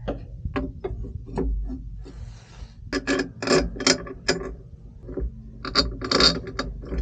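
Irregular metallic clicks and clanks of the air bag's steel mounting bracket and bolts being handled and seated against the leaf spring, with a short scrape about two seconds in and louder knocks around the middle and near the end.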